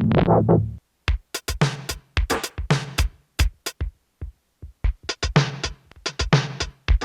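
Akai S612 sampler playing back a sampled drum loop as separate kick and bright snare or hat hits in a stuttering, uneven pattern with short dead gaps, as the sample's start and end splice points are moved. Under a second in, a sustained synth-like tone cuts off suddenly before the drums start.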